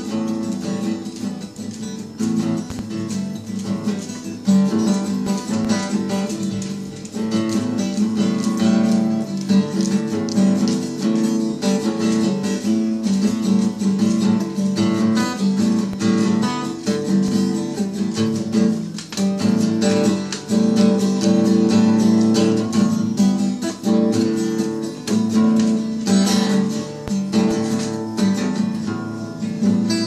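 Steel-string acoustic guitar played continuously, a steady run of chords.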